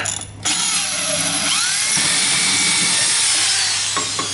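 Power drill with a cobalt and tungsten carbide-tipped multi-purpose bit boring into ceramic tile: a harsh grinding hiss with squealing tones that rise and fall. It starts in earnest about half a second in and eases off near the end.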